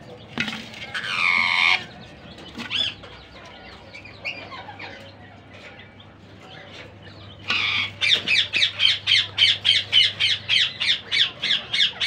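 Indian ringneck parakeets calling: a loud, harsh squawk falling in pitch near the start and a few shorter calls after it. About seven seconds in comes a rapid, even run of sharp calls, about four a second.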